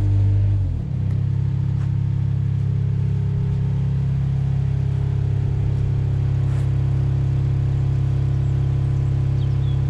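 Compact wheel loader's engine running; its note changes about a second in and then settles to a steady idle while the machine stands parked.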